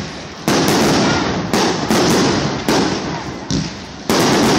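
Fireworks finale: aerial shells bursting in quick succession, about a bang a second and some in close pairs, each trailing off.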